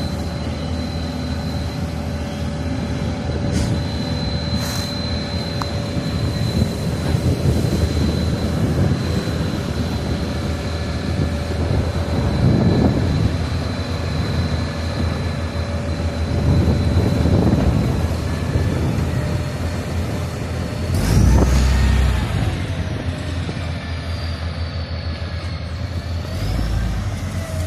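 Heavy engines running steadily at road works, swelling louder several times, with a sudden loud knock about three-quarters of the way through.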